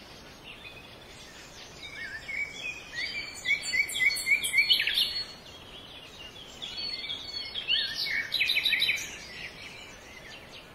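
Birds chirping and singing over a steady hiss, in two spells of quick rising chirps, the first livelier and louder.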